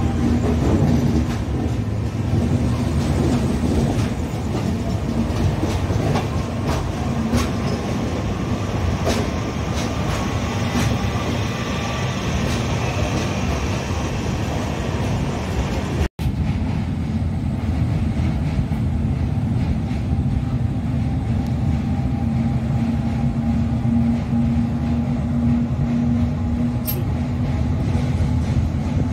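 Passenger train running on the track: a steady rumble and hum with sharp wheel clicks over the rail joints. The sound drops out for an instant about halfway through.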